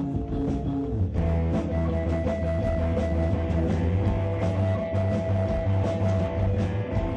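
Rock music with electric guitar over a heavy bass line; a fuller, louder passage comes in about a second in.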